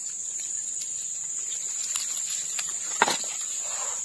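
Steady high-pitched drone of insects, with one short, sharp handling sound about three seconds in, the loudest thing heard.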